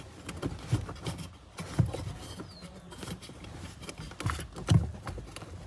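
Handling noise from a hand working a battery cable connector behind a plastic trim panel, pressing its red release button to unplug it: irregular soft knocks and clicks with light rustling, the loudest knocks about two, four and a half and five seconds in.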